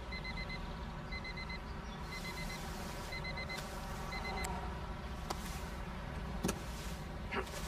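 Electronic beeping: quick groups of four high beeps repeating about once a second, stopping about four and a half seconds in. A few short knocks follow near the end.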